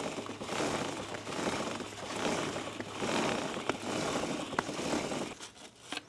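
Bristle chain-cleaning brush scrubbing a kerosene-wet motorcycle roller chain, a wet scraping swish in repeated strokes with a few small clicks from the chain.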